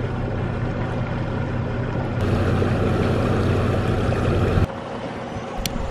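Yamaha 250 V6 outboard motor running steadily under way, with water rushing past the hull. The sound drops suddenly in level about four and a half seconds in, and a sharp click follows near the end.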